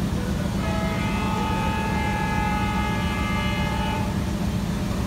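Diesel locomotive's horn sounding one long blast of about three seconds, starting about half a second in, over a steady low rumble.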